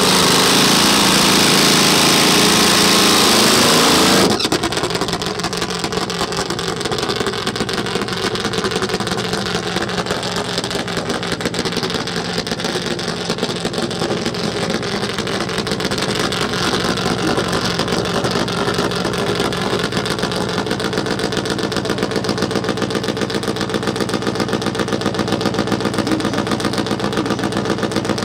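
Top Fuel supertwin drag bike engine at high revs during a burnout, the rear tyre spinning and smoking, for about four seconds. It cuts off suddenly, and after that a drag bike engine runs steadily at low revs.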